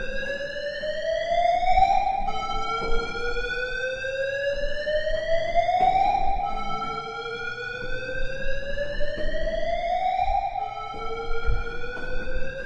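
Electronic warning alarm: a buzzy tone that sweeps slowly upward in pitch over about four seconds, drops back suddenly and rises again, repeating about three times.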